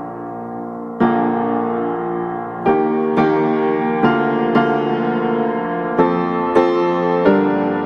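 Background piano music: slow sustained chords and notes struck every half second to a second and a half, each ringing on.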